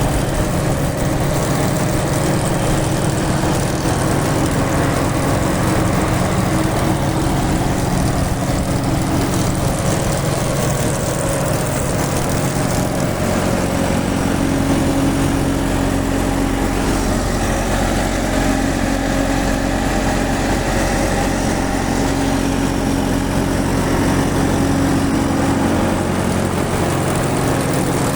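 Indo Farm tractor's diesel engine running steadily. Its note shifts about halfway through.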